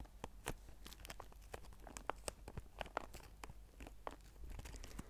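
Clear zip-lock plastic bag stuffed with crumpled white paper, squeezed and rubbed slowly by fingertips close to the microphone: soft, irregular crinkles and crackles.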